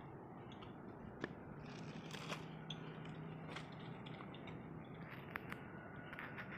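Faint, scattered clicks and scrapes as food is handled and cut with a small knife on a plate.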